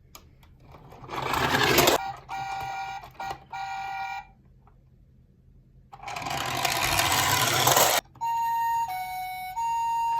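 Toy garbage truck: a whirring of its wheels and drive gear comes twice, and in between its electronic sound chip beeps. First a steady tone, then near the end notes alternating between two pitches like a toy siren.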